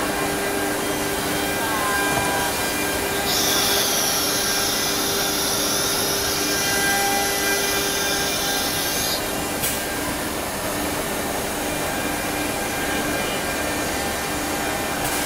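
CNC wood router with a linear automatic tool changer at work: steady machine noise, with a high hiss that starts about three seconds in and cuts off about six seconds later, followed by a sharp click.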